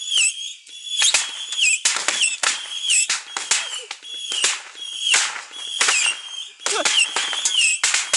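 Beehive rocket barrage (蜂炮) going off: rapid bangs and crackling in clusters about once a second, with a high whistle that drops in pitch between bursts.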